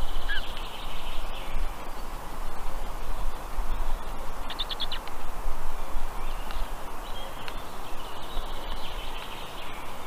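Faint high chirping of black stork chicks calling from inside their hatching eggs, with a quick run of short chirps about halfway through. Under it runs a steady low rumble.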